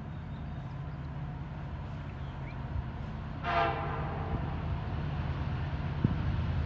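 An approaching Norfolk Southern SD70ACe diesel locomotive, its engine a steady low rumble that slowly grows louder. About three and a half seconds in, the locomotive's air horn gives one short blast.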